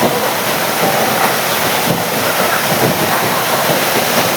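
Waterfall with water rushing in a steady, loud, unbroken roar.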